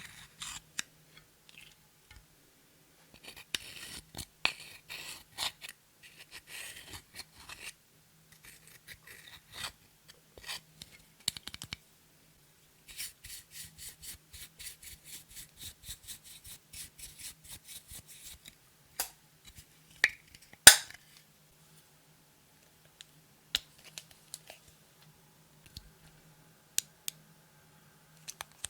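Close-miked crisp crackling, scraping and rapid clicking as makeup is crushed and worked into clear slime, followed by a few separate sharp clicks, the loudest about two-thirds of the way in.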